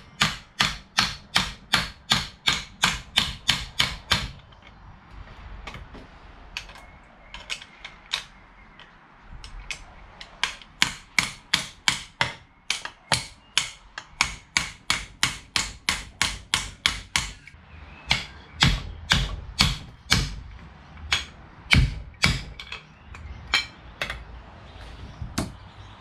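Hammer tapping on a seized gudgeon (wrist) pin in a two-stroke jet ski engine's piston to drive it out. The sharp blows come in quick runs of about three to four a second, with a pause of a few scattered taps a few seconds in, then slower, spaced blows near the end.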